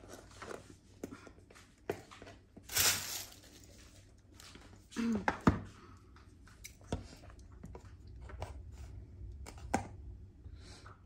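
Handling noises from a cardboard smartphone box and its wrapping: a short rustle about three seconds in, a sharp knock about five seconds in as the box is set down on the table, and a few lighter knocks after.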